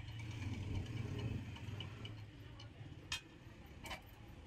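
Woodworking machine's motor giving a low hum that fades out about two and a half seconds in, with faint ticking, then two sharp clicks near the end.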